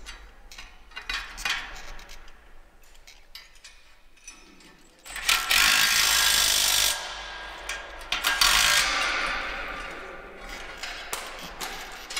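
Cordless impact wrench hammering on a bolt at a tillage digger's shank bracket in two runs, each about two seconds long, with the second trailing off. Light metal clinks of handling the parts come before it.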